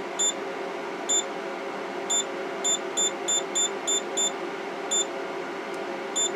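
Anycubic Photon resin 3D printer's touchscreen beeping once at each tap: about eleven short, high beeps at an uneven pace, including a quick run of six near the middle, over a steady hum.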